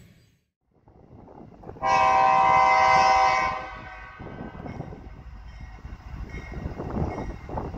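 Diesel freight locomotive's air horn sounding one long blast about two seconds in, followed by the low rumble of the approaching train, growing louder near the end.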